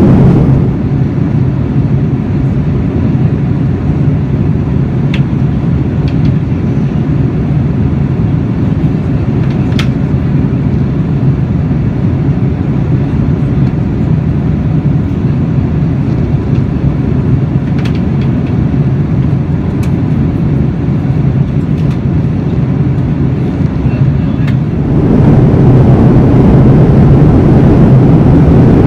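Steady cabin noise of a Boeing 787-9 airliner in flight, heard from a window seat over the wing: a deep, even rumble of engines and airflow. It drops a little about a second in and grows louder again about 25 seconds in, with a few faint clicks along the way.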